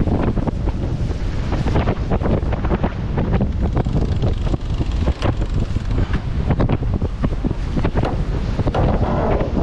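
Wind buffeting the onboard microphone over the rush of water along the hulls of an Extreme 40 racing catamaran under sail.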